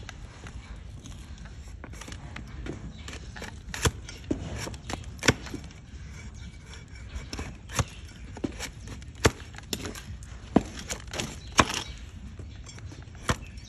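A sharp flat hoof-paring shovel slicing off shavings of a donkey's hoof horn, in about a dozen short, crisp cutting strokes at irregular intervals, some much louder than others.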